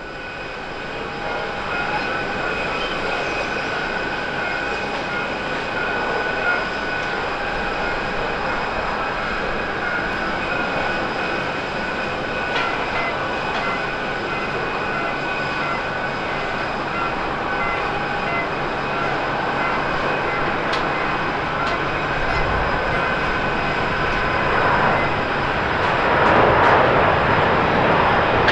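Airbus A350-900 jet engines (Rolls-Royce Trent XWB turbofans) running with a steady multi-tone whine over a broad rush on the takeoff roll. The roar swells louder near the end as the airliner accelerates down the runway.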